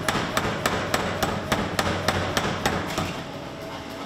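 Power hammer pounding a red-hot steel axe blank held in tongs, a steady run of about ten blows at roughly three and a half a second, stopping about two-thirds of the way in.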